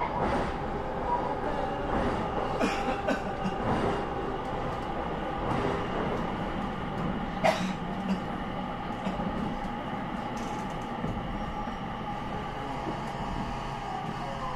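Inside an electric commuter train carriage as it runs along the track: a steady rumble of wheels on rail with several held, even tones from the running gear. A single sharp click comes about halfway through.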